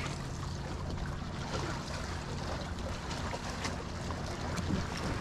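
Water lapping against a kayak's hull, with wind on the microphone and a faint steady low hum, plus a few small ticks.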